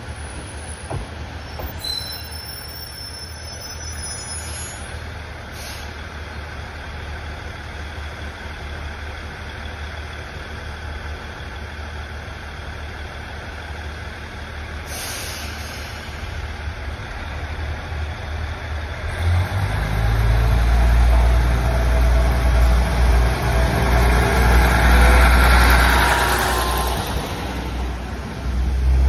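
Two-car KiHa 110 series diesel railcar approaching and passing close by. A faint rumble grows slowly, and about two-thirds of the way in the low drone of the diesel engines and the running gear becomes loud as the cars go past.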